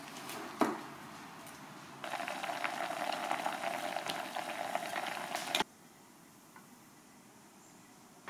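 Sweet potato slices simmering in syrup in a small saucepan: a steady bubbling crackle that starts about two seconds in and cuts off abruptly a few seconds later. A single knock comes just before it.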